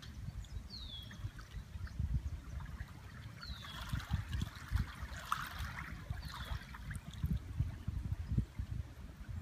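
Small waves lapping at a pond's edge, with gusts of wind rumbling on the microphone. A bird gives a short, high, downward-slurred call three times, about three seconds apart.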